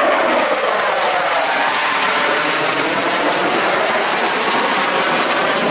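CF-18 Hornet fighter jet making a pass over the airfield: the loud, steady rush of its twin turbofan engines.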